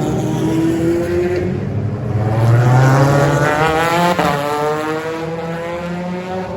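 Racing car engines at high revs: one car rises in pitch as it closes in and flies past about four seconds in, its engine note dropping sharply as it goes away, with other cars running behind it.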